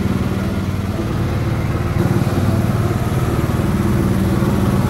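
Go-kart's small engine running under way, a steady buzzing drone that gets louder about two seconds in as the kart picks up.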